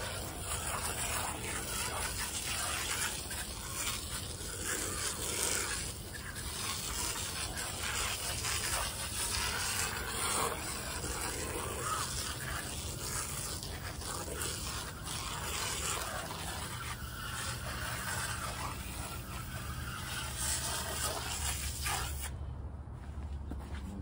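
Aerosol can of Frost King foaming coil cleaner spraying onto an air conditioner condenser coil in a long, steady hiss that stops suddenly about two seconds before the end.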